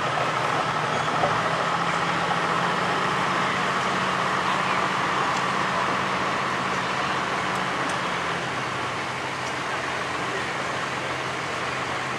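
A steady engine drone over a noisy background haze; the engine's low hum drops away about eight seconds in.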